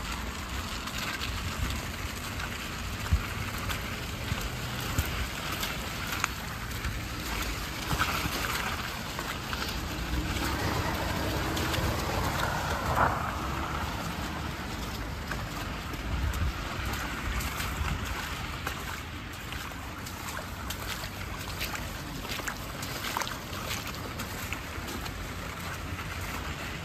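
Footsteps on wet slush and ice, with rain falling and tyres hissing on the wet road. A passing car swells louder around the middle, and a low wind rumble sits on the microphone.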